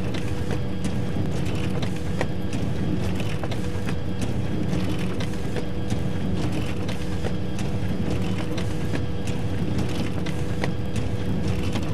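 Photocopier running continuously: a steady motor hum with scattered clicks and a higher swish that comes back about every two seconds as it cycles through copies.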